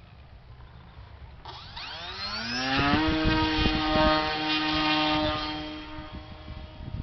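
Electric brushless motor (Turnigy 2822) of an RC trainer airplane spinning up its propeller: a whine that rises in pitch for about a second and a half, then holds steady. It grows quieter over the last couple of seconds, with a few scattered knocks.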